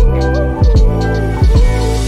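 Background music with a steady beat: a deep thump about every three-quarters of a second under sustained held notes and a melody line.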